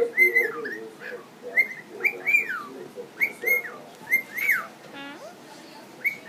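Cockatiel singing: a repeated phrase of short, clear whistles that rise and fall, in quick groups about once a second, with a brief buzzy note near the end.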